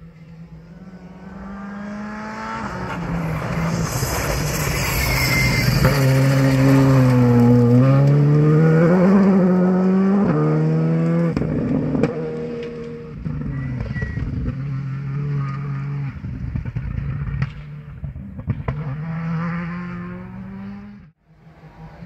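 A cross-country rally car's engine at full throttle grows louder as it approaches and passes close. Its pitch climbs and drops several times through gear changes, then the sound eases as the car drives away. Near the end the sound cuts off abruptly and a fainter engine follows.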